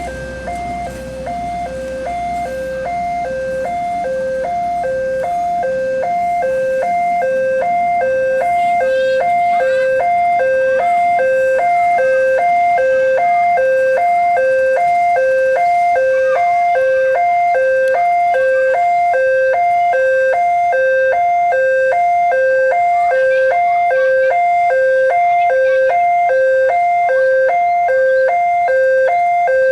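Railway level-crossing warning alarm sounding its electronic two-tone chime, a higher and a lower tone alternating steadily without a break. A low vehicle rumble fades out over the first few seconds.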